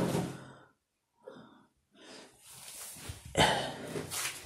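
Rustling and handling noises close to the microphone, with a near-silent gap about a second in. A sharper, louder rustle comes about three and a half seconds in.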